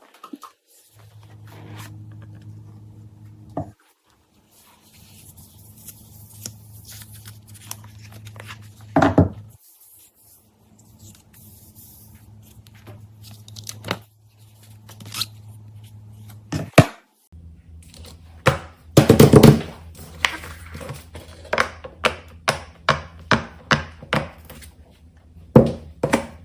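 A low steady hum that cuts in and out, broken by a few single sharp knocks. In the last third comes a quick run of sharp, evenly spaced knocks, about two a second, the first of them the loudest.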